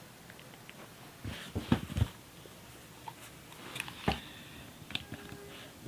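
Handling noise as a phone charger is plugged into a cellphone: a few soft knocks and clicks, heaviest about a second and a half in and again about four seconds in, over quiet room tone.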